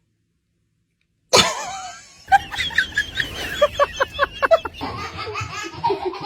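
Silence for about a second, then a sudden loud sound followed by a person's rhythmic laughter.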